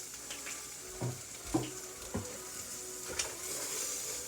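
Eggs frying in a pan with a steady sizzle, and a few light knocks over the first three seconds.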